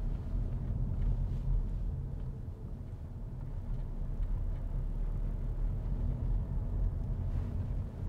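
Car driving at steady speed, heard from inside the cabin: a continuous low rumble of engine and road noise.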